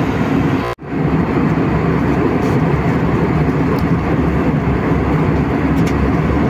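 Steady drone of an airliner's cabin in cruise flight, the noise of the engines and rushing air, with a very brief break in the sound just under a second in.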